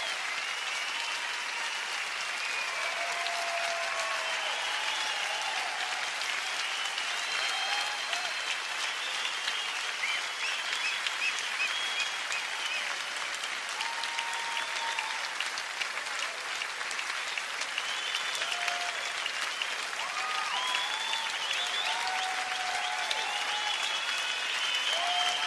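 Large concert audience applauding steadily, dense clapping with whistles and shouted cheers rising and falling over it.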